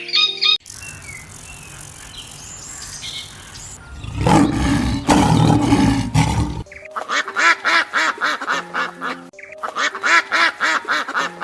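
Background music with held notes. Over it come faint chirps, then a loud, low, rough animal sound for about two and a half seconds, and in the second half a rapid run of duck quacks.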